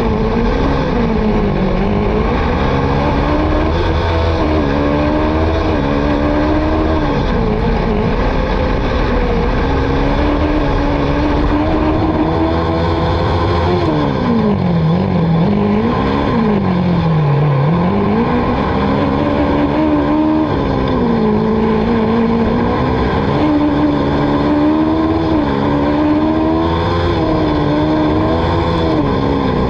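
Autocross race car engine running hard, its revs climbing and falling repeatedly through gear changes and corners, with two sharp drops and recoveries around the middle.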